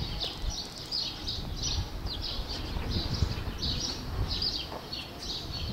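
Small birds chirping: a busy run of short, high chirps, several a second, over a low rumble.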